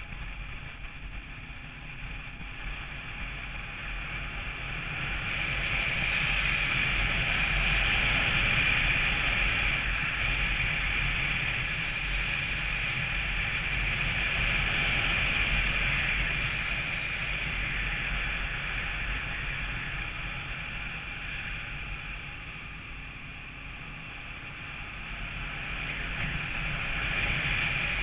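Vehicle driving along a road: steady road and wind noise over a low engine rumble, getting louder about five seconds in, easing off past the twenty-second mark, then rising again near the end.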